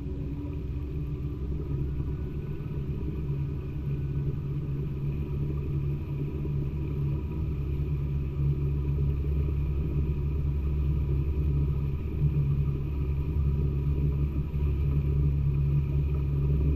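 A motor running steadily with a low, continuous rumble.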